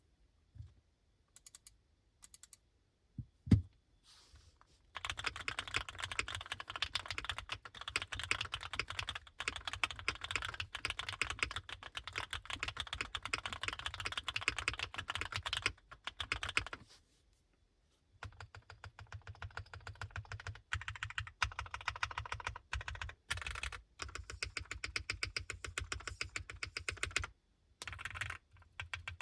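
Typing on a Neo65 custom mechanical keyboard with lubed and filmed Gateron Oil King linear switches, a POM plate, gasket mount and tape mod. It opens with a few single keystrokes and one heavier thump. Then comes fast continuous typing, with a short pause a little past the middle.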